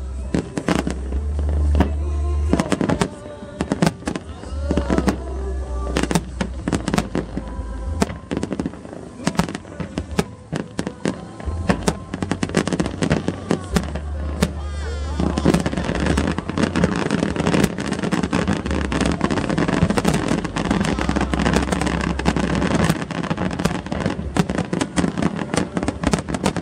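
Fireworks display: a rapid series of aerial shell bangs, with show music playing through loudspeakers underneath. About halfway through, the bursts thicken into a dense, continuous crackle.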